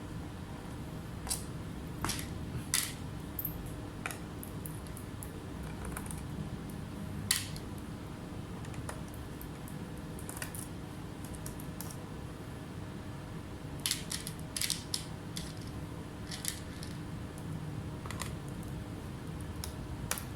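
Scattered small clicks and taps of tools and parts being handled during laptop repair, about a dozen at irregular intervals, over a steady low hum.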